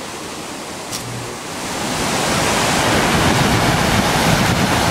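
Roar of a large Class V whitewater rapid, heard from a kayak on the water above it. It starts as a quieter hiss with a short low thump about a second in, then grows louder over the next couple of seconds and holds steady.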